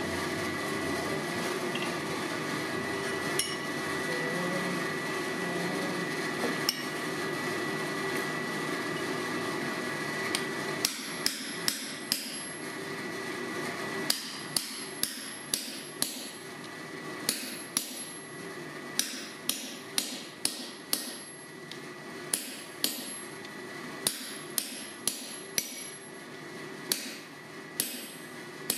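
Blacksmith's hand hammer striking hot steel on an anvil while forging tongs, the blows ringing and coming in irregular runs of about one or two a second, starting about a third of the way in. Before the hammering there is a steady rushing noise with a thin high tone.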